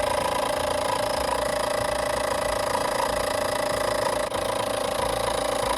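Milking machine running steadily, its motor giving an even, unchanging drone, with a brief tick about four seconds in.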